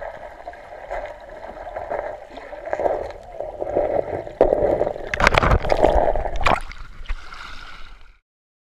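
Water sloshing and gurgling around a kayak as it is paddled, with several sharp knocks a little past halfway. The sound starts and stops abruptly.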